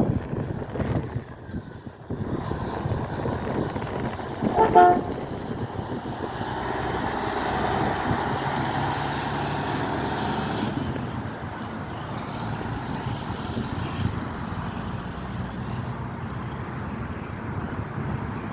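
A short horn blast about five seconds in, the loudest sound, then a truck passing, its noise swelling and dropping away after a few seconds, over steady road traffic.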